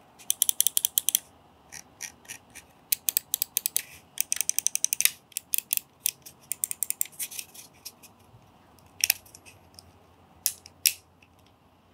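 Endorfy LIV Plus Wireless gaming mouse buttons on Kailh GM 8.0 switches clicking. There are quick runs of crisp clicks, then single presses that grow sparser toward the end.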